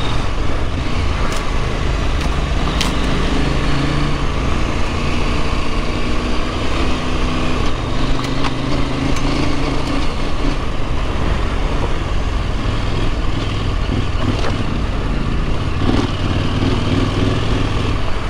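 Husqvarna Norden 901's parallel-twin engine running under way, its note shifting up and down with the throttle, over a steady rush of wind and riding noise. A few sharp ticks come through along the way.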